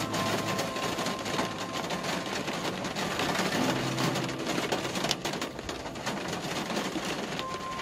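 Car driving through rain on a wet road: a steady wash of rain and tyre noise with the engine running underneath and a dense patter of drops. A few faint held musical notes sound in the first two seconds and again around four seconds in.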